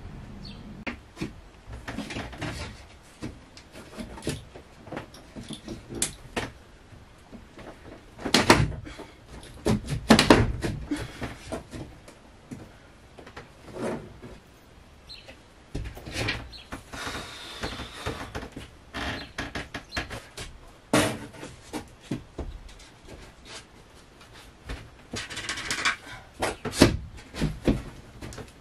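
Scattered knocks, taps and bumps of wooden tongue-and-groove wall planks being pressed and tapped into place by hand, with louder thumps about eight and ten seconds in and a couple of brief scrapes of wood later on. The top plank is bent and will not snap fully into the one below at the corners.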